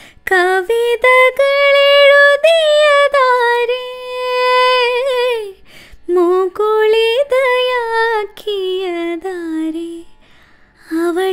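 A woman singing a line of a Malayalam film song in raga Kapi solo, with no accompaniment: held notes with small wavering pitch ornaments, broken by a short breath about five and a half seconds in and a longer pause near the end before she picks up again.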